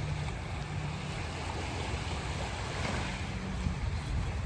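Waves washing on a sandy beach, mixed with a steady low rumble of wind buffeting the microphone.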